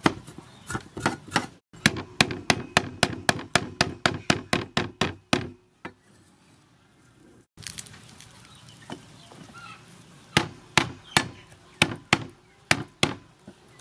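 Cleaver chopping ginger on a wooden chopping board: a quick, even run of knocks at about five a second, then a pause of a few seconds, then slower, spaced chops near the end.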